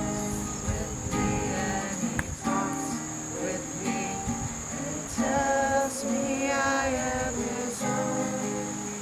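A small group of women and children singing together from song sheets, accompanied by an acoustic guitar.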